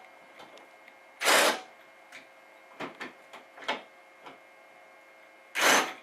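Cordless power driver whirring in short trigger bursts as it runs down a bracket bolt: one strong burst about a second in, a few faint brief ones, and another strong burst near the end.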